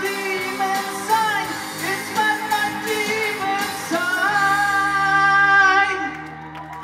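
Live pop-rock band playing, with a male lead vocalist singing over guitars, keys and drums. A long note is held about four seconds in, and the music dies away near the end.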